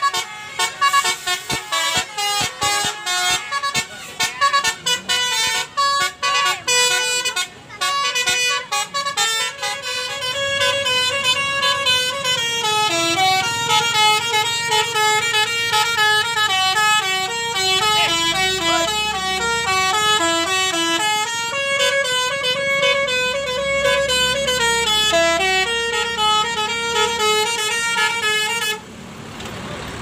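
Bus telolet basuri musical air horn playing a tune of stepped notes. For the first ten seconds it plays in short choppy blasts with gaps, then it runs as a continuous melody until it cuts off abruptly near the end.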